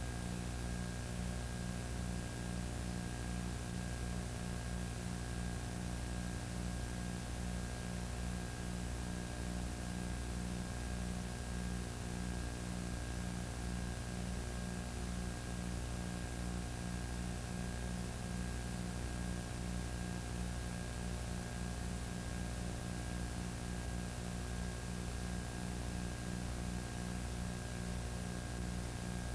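Steady electrical hum and hiss, with nothing else: the noise floor of an audio track that carries no recorded sound.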